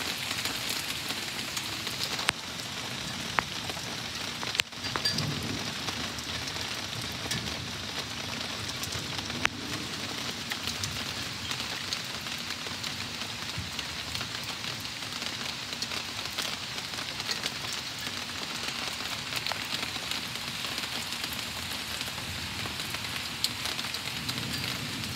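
Steady heavy rain falling on leaves and ground, an even hiss broken by a few sharp taps.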